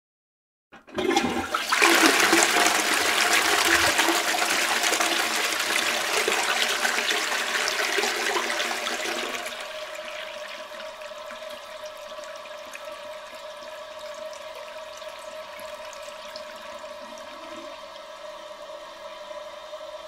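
Toilet with a push-button ceramic cistern flushing: about a second in, a loud rush of water that runs for some eight seconds, then drops to a quieter steady hiss with a faint steady tone as the cistern refills.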